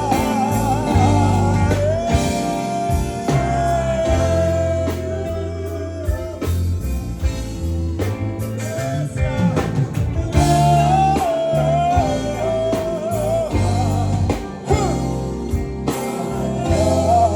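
Live band music: a held melody line that bends and wavers in pitch over a steady bass and drums.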